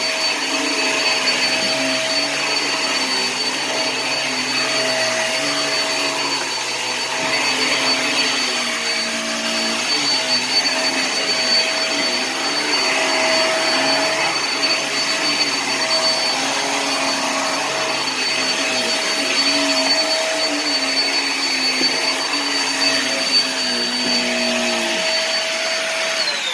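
Hoover React upright vacuum running over carpet: a steady motor whine over rushing air, its lower pitch wavering as it is pushed back and forth. At the very end it is switched off and its pitch falls as the motor spins down.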